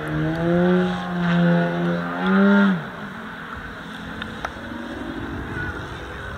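Propeller plane engine running through aerobatic manoeuvres, its note wavering up and down with the throttle. About three seconds in the note glides down and fades, leaving a fainter engine sound and wind.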